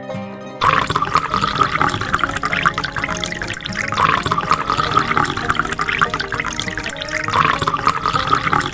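Water running in a steady rush that starts about half a second in, over background banjo music.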